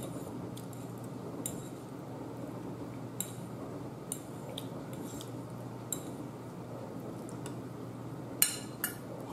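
Metal fork clinking and scraping against a plate as food is scooped up: a few light, separate clicks, then a louder pair of clinks near the end, over a steady low hum.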